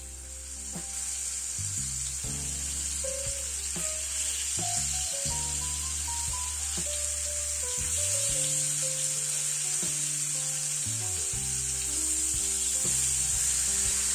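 Flour-coated thin pork slices sizzling in hot oil in a frying pan, the sizzle growing louder as they cook. Soft background music plays underneath.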